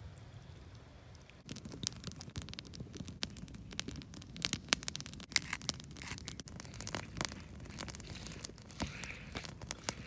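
Quiet at first; then, about a second and a half in, dense irregular crisp crackling starts as a hand pepper mill grinds peppercorns, followed by a wooden pestle crushing pine nuts and parsley in a wooden mortar.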